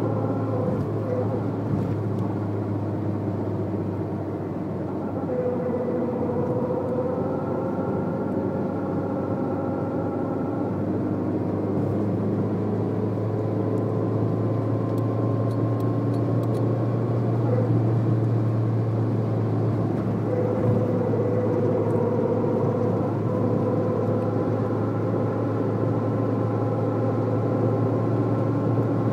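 Citroën Saxo at highway speed heard from inside the cabin: a steady low drone of engine and road, with a humming tone that rises out of it about 5 seconds in for several seconds and again about 20 seconds in. The noise comes from the front at certain speeds and throttle and was cured by replacing the left front drive shaft, which was worn.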